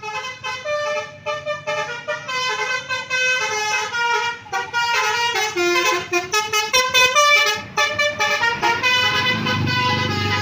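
Indonesian bus 'telolet basuri' multi-tone musical horn playing a quick melody: chords of horn notes that jump from pitch to pitch several times a second. A low rumble comes in near the end.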